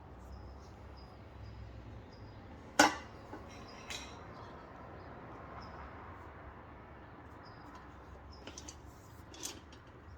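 Sharp metal clack from handling the manual tire changer and its tire clamp, followed a second later by a softer click and a few light ticks near the end, over a low steady hum.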